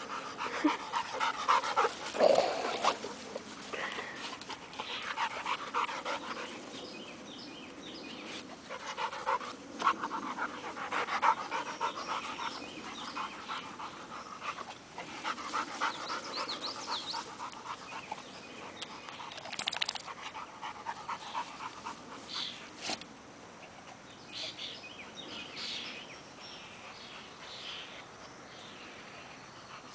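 Dogs panting in repeated runs of quick, short breaths, with a few sharp clicks scattered among them.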